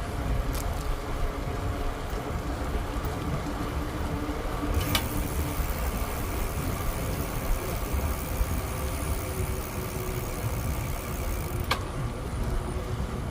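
Wind rumbling on the microphone during a bicycle ride, with a faint steady hum above it. Three sharp clicks come through: about half a second in, about five seconds in, and near the end.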